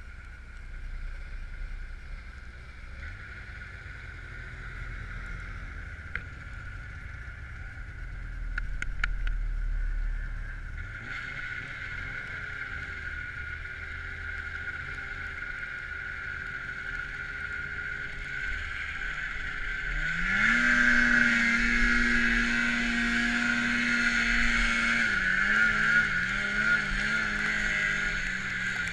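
Snowmobile engine running under way. About two-thirds of the way through it revs up, holds a steady higher pitch for several seconds, then eases off and rises and falls again.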